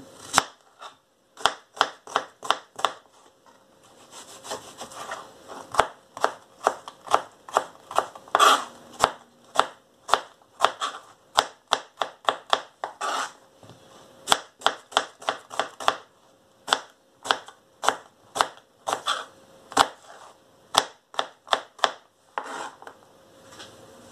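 Kitchen knife chopping an onion into small dice on a plastic cutting board: a run of sharp knocks, about two or three a second, with a few short pauses.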